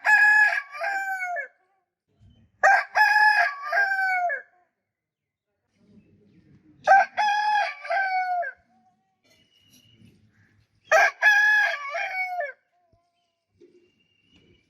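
Rooster crowing four times, a few seconds apart; each crow lasts about a second and a half and drops in pitch at the end.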